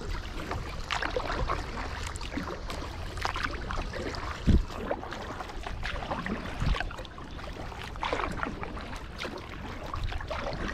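Kayak paddling: the paddle blades splash and drip water in irregular strokes over a low rumble, with a short thump about four and a half seconds in and a smaller one a couple of seconds later.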